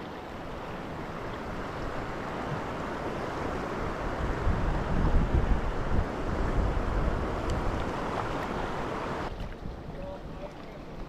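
Sea surf washing in over rocks: a steady hiss of water that swells to a loud, rumbling surge in the middle and then eases off, dropping away abruptly near the end, with wind buffeting the microphone.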